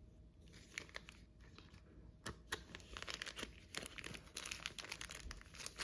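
Plastic packaging crinkling as small parts are unpacked by hand, a string of small crackles that gets busier after about two seconds.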